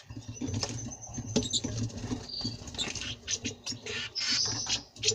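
Small finches, a European goldfinch and a common rosefinch, moving about a water bath: irregular light taps and scrabbling, with a brief small splash.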